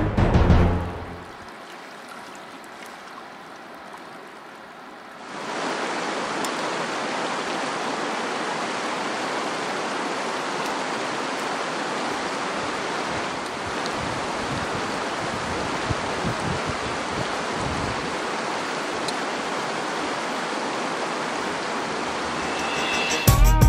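Steady rushing of a shallow river flowing over rocks, an even wash of water noise that grows louder about five seconds in. The tail of background music fades out in the first second.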